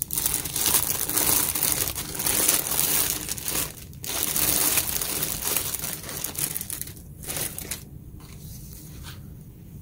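Clear plastic bag crinkling as it is worked off a cordless impact wrench: two loud stretches with a brief pause about four seconds in, then fading to faint rustles near the end.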